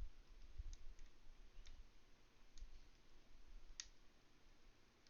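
Faint, sparse metallic clicks of a lock pick working the pins of a Master Lock Magnum padlock during single pin picking, about five in all, the sharpest a little under four seconds in, with soft low bumps of handling near the start.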